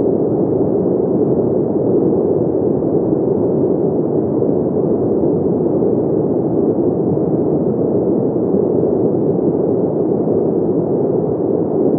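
A steady, even rushing noise with no pitch or rhythm, deep and dull rather than hissy, holding one level throughout.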